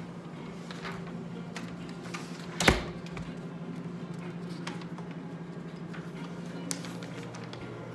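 A steady low hum in a room, with a few light clicks and one sharp knock about a third of the way in, like a handheld phone being bumped while it films on the move.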